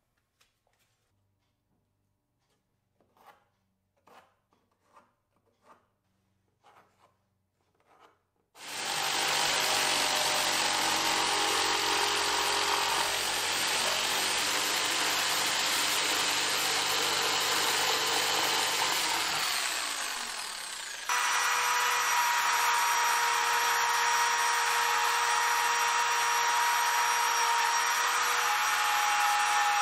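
A few faint scrapes, then a corded jigsaw starts about a third of the way in and saws through a board, running steadily before winding down. Right after, a Ridgid compact trim router starts suddenly and runs steadily with a high whine while routing a board edge.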